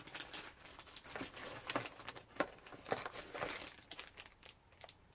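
Packaging crinkling and rustling as it is handled and unwrapped, an irregular run of crackles with the loudest a little after two seconds and just before three.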